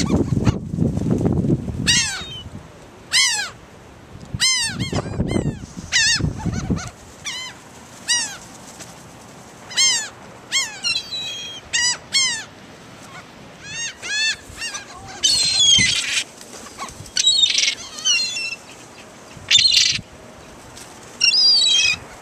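Seagulls calling: many short, arching squawks, some coming in quick runs of several, with a low rumble in the first two seconds.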